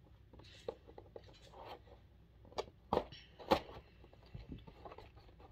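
Hands working at the taped-shut packaging of a bead kit: scattered light clicks, taps and rustles, with a few sharper clicks around the middle.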